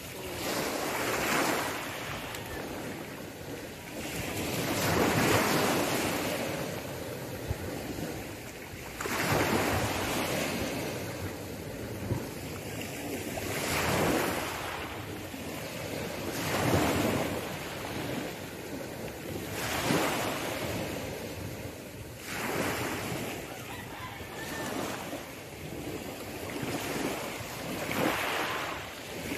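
Small sea waves breaking and washing up a pebble beach, a surge every two to three seconds.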